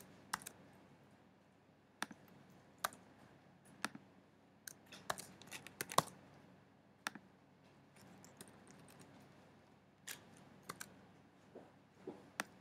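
Computer keyboard keystrokes and mouse clicks, scattered and irregular, as a formula is typed and entered; the clicks are faint over low room tone.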